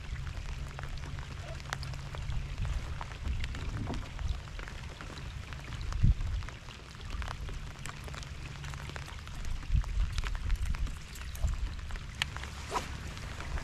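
Steady rain falling on the water, the rain suit and the kayak, heard as many scattered sharp drop ticks over a low rumble. A few louder taps stand out, the loudest about six seconds in.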